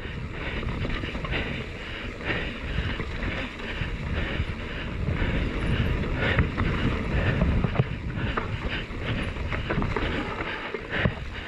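Mountain bike descending a dry dirt trail at speed: tyres rumbling and crunching over dirt and dead leaves, the bike clattering over bumps, with wind rushing over the microphone.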